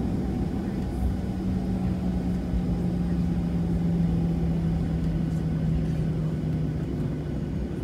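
Cabin noise inside a Boeing 737-700 taxiing: a steady low rumble of the engines and rolling gear, with a droning hum that sets in about a second in and slowly sinks a little in pitch.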